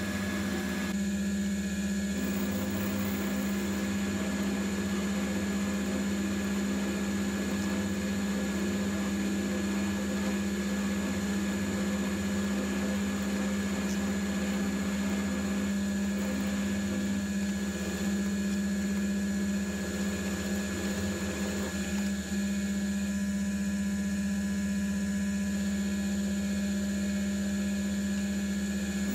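AL960B mill drill running steadily while a 6 mm end mill cuts a keyway into a shaft under coolant: a steady motor hum with a constant higher whine from the cut.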